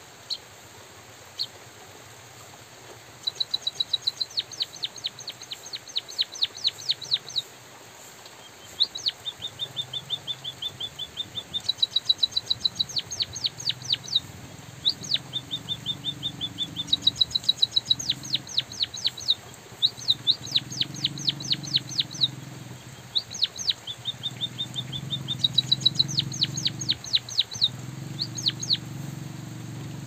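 White-headed munia singing: bouts of rapid, high, sharp ticking notes, many a second, alternating with short softer trills, over a steady hiss of light drizzle. A low hum grows underneath from about halfway through.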